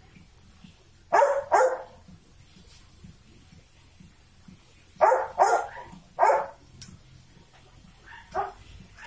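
A dog barking: two barks about a second in, three more at about five seconds, then a fainter bark near the end.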